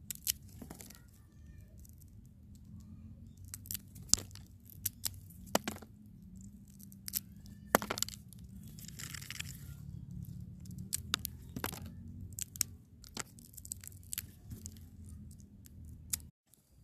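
Salak (snake fruit) being peeled by hand: its scaly skin cracking and tearing in irregular sharp snaps, with a longer rip about nine seconds in.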